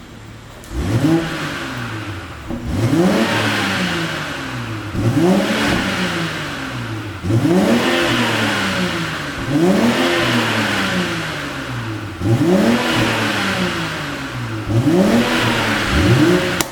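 BMW X7 xDrive40i's turbocharged 3.0-litre inline-six revved in about seven blips, one every two seconds or so. Each rise in pitch falls back with crackling and popping from the exhaust, the effect of a pops-and-bangs engine tune.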